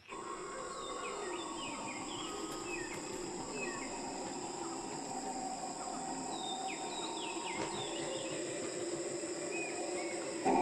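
Nature ambience: steady, high insect trilling, with many short, downward-sweeping bird chirps scattered through it.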